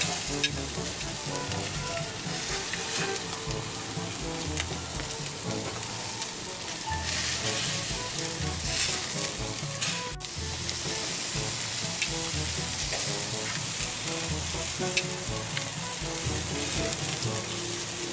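Marinated chicken skewers sizzling and crackling on a hot grill over open flames.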